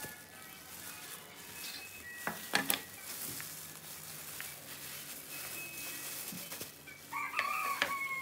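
Aluminium cake pan knocked against a wooden cutting board a few times, about two and a half seconds in, as a baked marble cake is turned out of it, over soft background music. Near the end a short wavering tone comes in over the music and falls as it ends.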